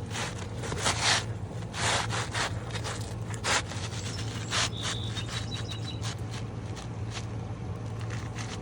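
Asphalt shingles scraping and rubbing against each other in several short, separate strokes, most of them in the first half, over a steady low hum.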